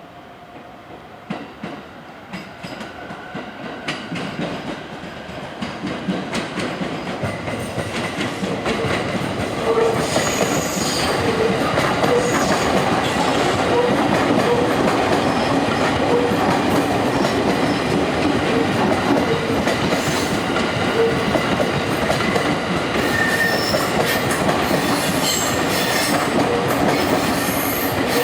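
E233-series electric train running over the points, its wheels clattering over the rail joints and turnout. It grows steadily louder over the first ten seconds as it approaches, the clicks coming closer together, then runs loud and steady as the cars pass.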